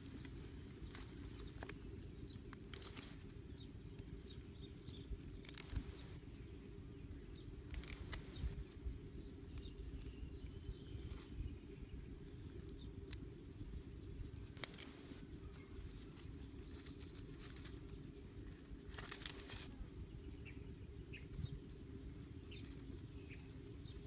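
Dry grass and plant stems rustling and crackling as they are handled, bent and stripped, in short bursts every few seconds over a steady low hum.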